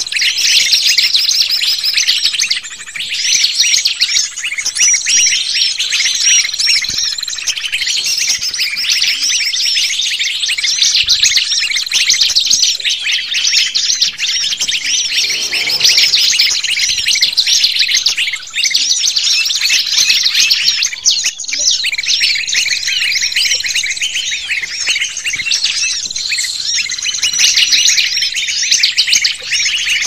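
Bird-lure (pikat) recording of many small birds chirping and twittering in a dense, rapid chorus of high calls. A thin steady high tone runs beneath them.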